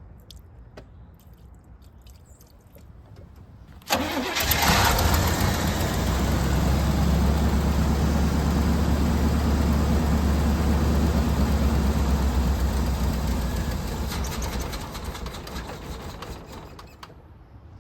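A 1987 Monte Carlo SS's V8 engine fires up suddenly about four seconds in, running on gas poured into the carburetor. It runs steadily for about ten seconds, then fades and dies out as the poured-in fuel is used up.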